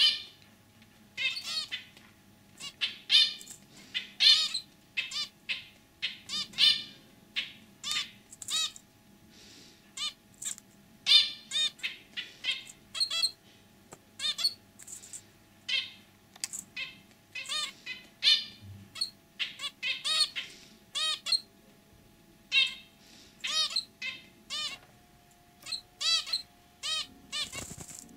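Zebra finch calling over and over: short, clipped calls, one to three a second, in uneven runs.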